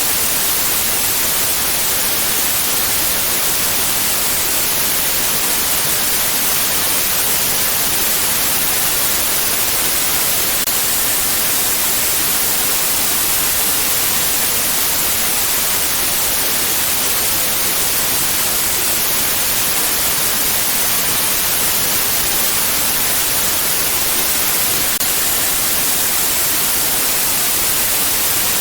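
White noise: a steady, even hiss, brighter in the treble than in the bass, with no change in level.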